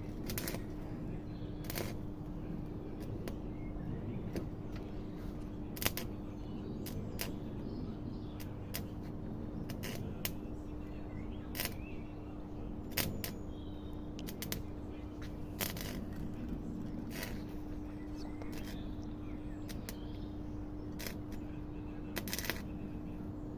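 Scattered sharp clicks and light knocks at irregular intervals, one every second or two, over a steady low hum.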